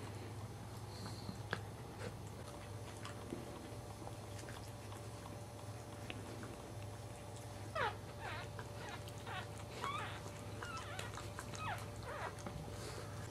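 Newborn Cairn terrier puppies squeaking: a run of short, high, sliding squeaks in the second half, over a steady low hum.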